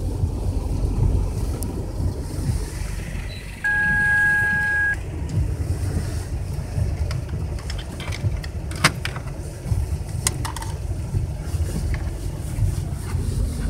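Low, steady rumble of a vehicle heard from inside the cab as it rolls slowly over gravel. About four seconds in, a single steady electronic beep sounds for just over a second, and a few sharp clicks follow around the middle.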